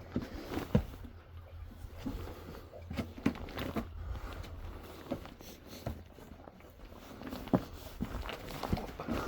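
Footsteps over shoreline rocks: irregular knocks and scuffs of shoes on stone, a few sharper than the rest, about one to three a second.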